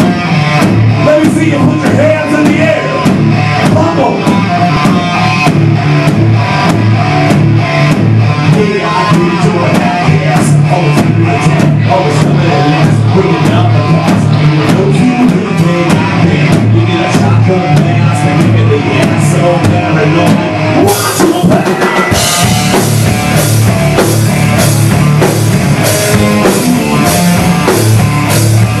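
Rock band playing, with a drum kit keeping a steady beat under guitar. About two-thirds of the way through, the cymbals come in brighter and the sound fills out.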